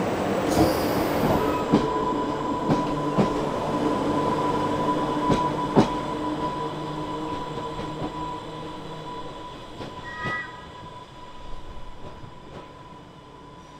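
Island Line Class 484 electric train running, its wheels squealing briefly at the start over a rumble with a steady whine and a few clicks from the track. The noise dies away steadily, with a short beep about ten seconds in.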